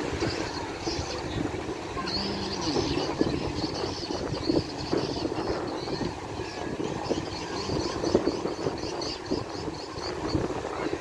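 Wind buffeting the microphone over the steady rush of the bono tidal bore surging up the Kampar River, with faint distant voices.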